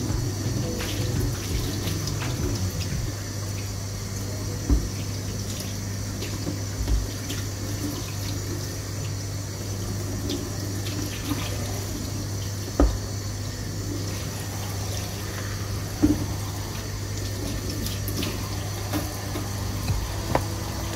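Kitchen tap running into a stainless steel sink while a plastic cutting board is rinsed and scrubbed under the water. Three sharp knocks stand out as the board is handled against the sink.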